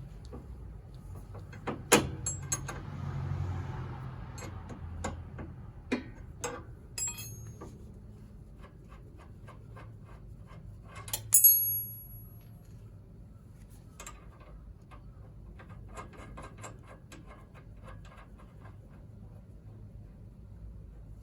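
Scattered metallic clicks and knocks, with a sharp clink about two seconds in and a louder ringing clink about eleven seconds in, over a steady low hum.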